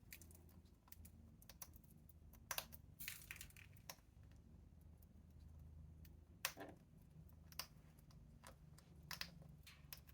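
Parrot crunching food pellets in its beak: irregular sharp cracks and clicks, with the loudest bunches about two and a half to three seconds in and about six and a half seconds in.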